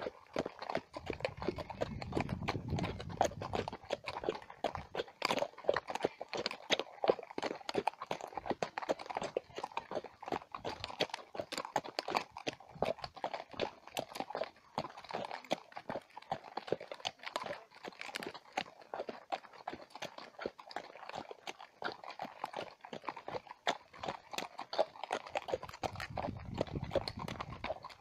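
Horse hooves clip-clopping on a dirt track, a steady run of hoofbeats, with a low rumble about one to four seconds in and again near the end.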